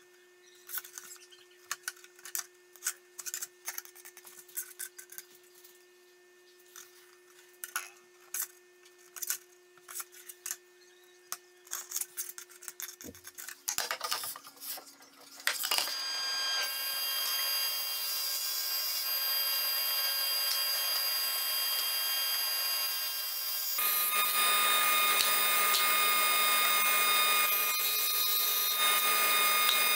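Light scratches and taps of a pencil and steel rule on plywood. About halfway through, a Powermatic cabinet table saw starts and runs with a steady whine. In the last third it rips through a sheet of plywood and gets louder, its tone dropping under the load.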